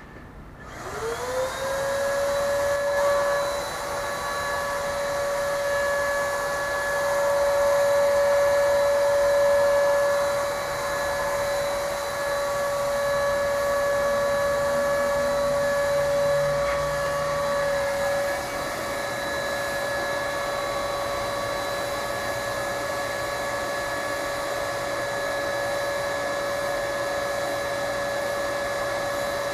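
Electric paint sprayer's turbine motor spinning up with a rising whine about half a second in, then running at a steady high whine, somewhat louder for a stretch in the middle.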